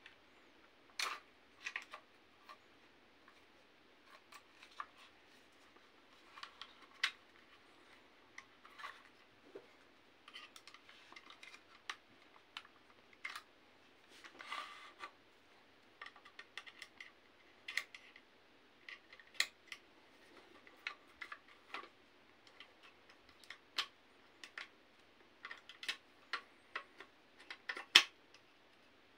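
Small clicks, taps and scrapes of hands working on a CYMA CM.041K airsoft gun, handling its plastic and metal parts, pins and a screwdriver, at irregular intervals, with the sharpest click near the end.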